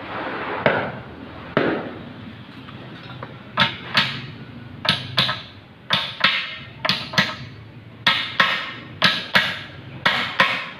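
Hammer blows on metal parts while a Mitsubishi 4D33 truck's transmission is being overhauled. There are a few single knocks in the first two seconds, then about a dozen sharp, ringing strikes, mostly in quick pairs about a second apart.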